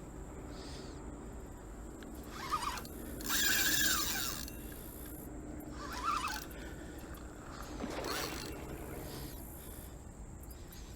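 Fishing reel being cranked and clicking as a hooked fish is played in. Its loudest stretch is a rasping burst about three to four seconds in.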